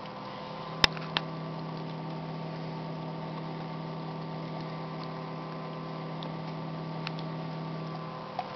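Steady electric hum from a homemade humidifier setup, with two sharp clicks about a second in. A lower hum tone comes in just before the first click and stops about half a second before the end.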